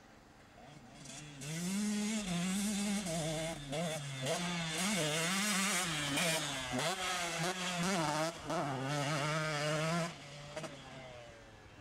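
Motocross dirt bike engine revving up and down again and again as the rider works the throttle around the track, loudest as the bike passes close. The engine grows loud about a second and a half in and fades back near the end.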